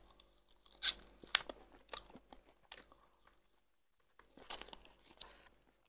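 Close-miked mouth sounds of a person eating smoked fish: a few scattered wet smacks and small crunches as she bites and sucks at a piece held to her lips.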